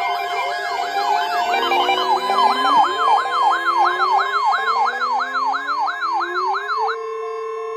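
Electronic alert sirens layered together: a fast up-and-down wail cycling about three times a second over slower rising sweeps. About seven seconds in, the wailing stops and a steady high alert tone holds on, announcing an official weather alert.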